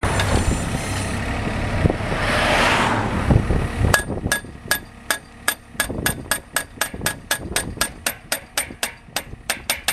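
Post driver's hammer striking a steel crash-barrier post, an even run of sharp, ringing metallic blows about three or four a second, starting about four seconds in. Before it there is steady traffic noise that swells as a vehicle passes.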